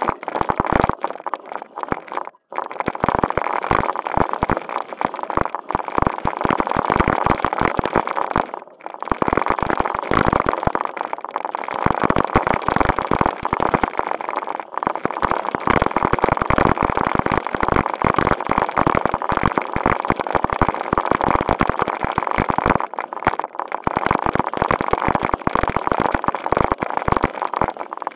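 JJRC Q76 1:16 four-wheel-drive RC stunt car running over road and gravel, picked up by a camera riding on it: a loud, continuous rough rattle and crackle with a faint steady whine. It drops out briefly twice.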